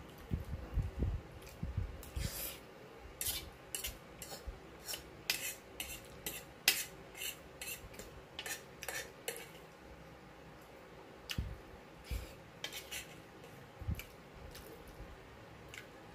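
A fork clinking and scraping against a bowl of pasta: a scatter of short, sharp clicks, densest in the middle stretch, with a few low soft thuds at the start and later on.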